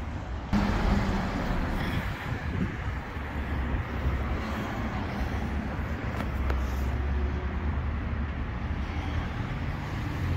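Road traffic on a nearby street: a steady rumble and hiss of passing vehicles, which gets louder about half a second in.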